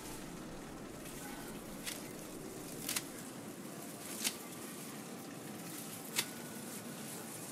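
Faint rustling of dry lemongrass stalks being handled and pulled at the base of a potted clump, with a few short, sharp snaps spread through it, the clearest about three, four and six seconds in.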